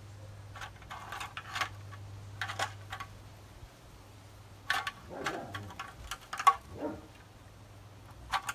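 Light clicking and rattling in several short clusters, a second or so each, over a steady low hum.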